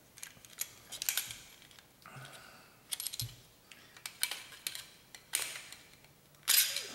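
Scattered small clicks, taps and scrapes of hard plastic and metal as the barrel of a USFA Zip .22 pistol is worked loose inside its frame, pushed with a pencil and pried with a folding knife. The loudest click comes near the end.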